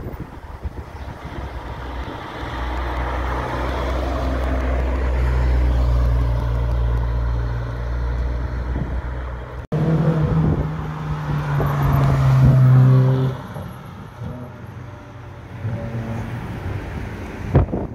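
Sports car engines running as two red supercars approach and pass along a street, the engine sound building to its loudest about six seconds in. After a cut, a loud steady engine note holds for about three seconds and then drops off suddenly, followed by quieter traffic.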